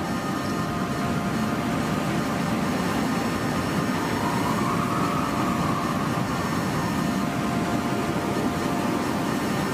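Lo-fi dungeon synth music: a dense, hissing, rumbling drone under several held synth tones, with a higher note swelling in and fading away about four to six seconds in.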